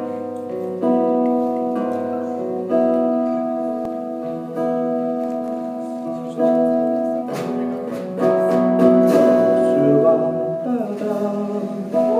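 Instrumental intro of a Korean pop ballad: sustained chords, a new one struck about every two seconds, with a wavering melody line joining in the second half.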